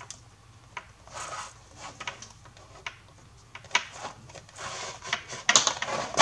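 Cord yarn being drawn with a large needle through the punched holes of a faux-leather bag panel: soft rubbing swishes and a few light clicks, louder near the end.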